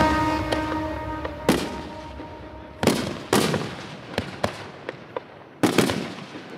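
Aerial fireworks bursting: a series of about eight sharp bangs over five seconds, each trailing off, while background music fades out in the first second or two.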